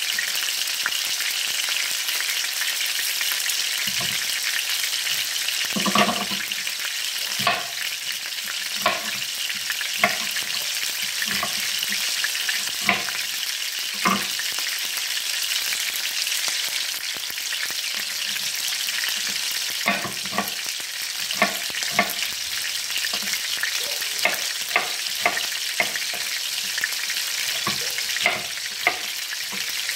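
Meatballs sizzling in hot oil in a frying pan, a steady hiss, with irregular sharp knocks every second or two that come closer together in the second half.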